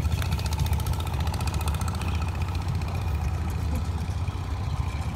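Engine of a long, narrow wooden passenger boat running steadily, a low, even pulse.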